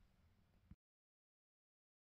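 Near silence: faint room tone that cuts off to total silence less than a second in.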